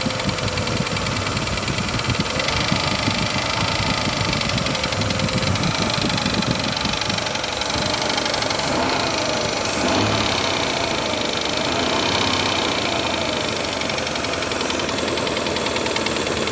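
Mitsubishi Montero Sport engine running with a rapid, steady knock, a knock that has newly appeared.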